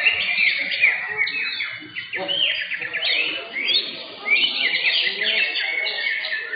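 Greater green leafbirds singing at once: a dense, unbroken run of varied, rapid whistles and chattering trills, with murmuring voices underneath.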